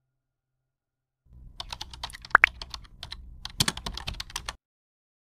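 A run of quick, irregular clicks and taps like typing, starting about a second in and stopping after about three seconds, over a low hum, with one brief rising tone in the middle.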